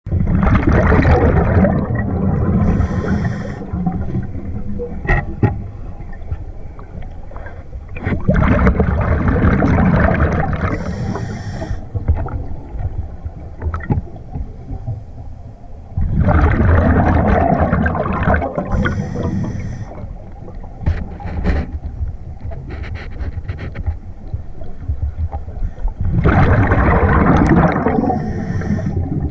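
Scuba diver breathing through a regulator underwater, heard close: four breaths about eight to nine seconds apart, each a long gurgling surge of exhaled bubbles with a short hiss from the regulator. Scattered clicks and knocks from handled gear come between the breaths.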